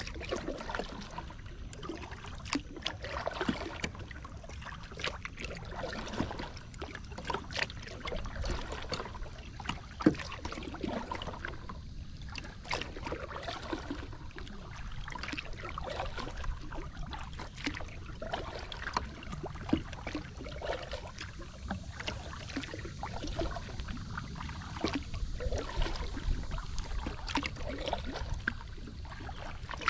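Water splashing and dripping around a kayak under way as it is paddled, a continual patter of small irregular splashes and drips, with one sharper knock about a third of the way in.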